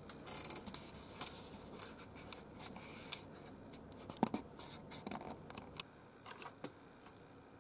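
Plastic model aircraft being handled in the fingers: irregular light clicks, taps and short scratching rubs of plastic, the sharpest click about four seconds in.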